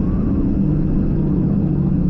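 Motorcycle engine running at a steady pitch over a low rumble.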